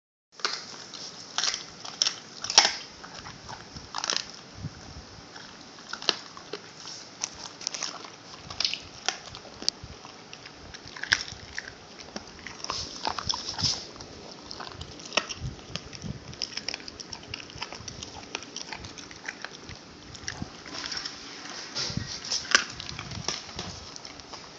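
A dog chewing a chicken foot: irregular crunches and clicks of bone and gristle between its teeth, loudest about two seconds in and again near the end.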